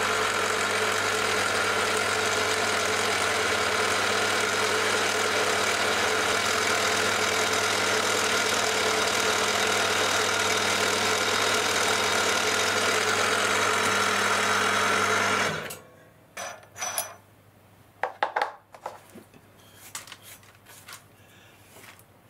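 Milling machine spindle running steadily with a 6 mm twist drill boring into a wooden strip, its motor stopping suddenly about fifteen seconds in. Afterwards a few light knocks and brushing as chips are swept off the vice.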